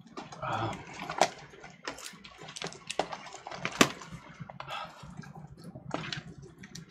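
Hands handling plastic DVD cases and box sets: irregular clicks and taps, with the sharpest knock a little before four seconds in, over some rustling.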